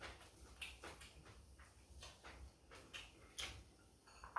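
Faint, irregular clicks and taps of chopsticks and dishes during eating, with one sharper tap near the end.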